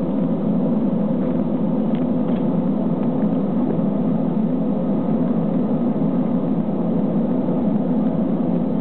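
Steady cabin rumble inside an Airbus A320 as it taxis, the engines at taxi power heard through the fuselage.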